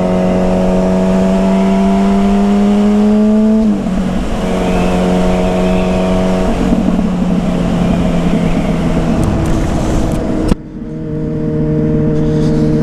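Yamaha Fazer 600 inline-four motorcycle engine with a WR slip-on exhaust, running under way. Its pitch climbs slowly, drops about four seconds in, settles lower again past the middle, and the sound changes abruptly about ten and a half seconds in. Wind noise runs underneath.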